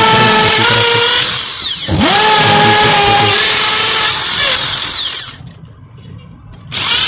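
Electric drill boring into a concrete floor, in three runs. Its whine cuts out after about a second, spins up again about two seconds in and runs until about four seconds, then winds down. After a short pause it starts again near the end.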